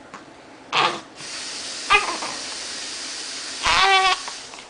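Newborn baby hiccuping: two sharp, sudden hiccups about a second apart, then a brief wavering little cry near the end. A steady hiss runs under the middle.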